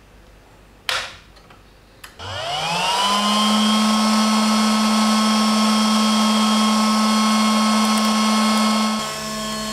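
A click as the power amplifier is switched on, a second click about a second later, then its cooling fan spins up with a rising whine and runs steadily. Near the end the fan drops to a slightly lower, quieter pitch.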